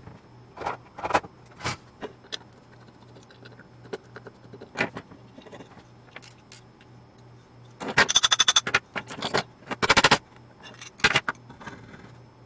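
Small metal parts and tools clicking and clinking against a military RF head's housing and the wooden bench as it is handled and its small screws are worked at. There are scattered single clicks, with two runs of rapid loud clattering about eight and ten seconds in.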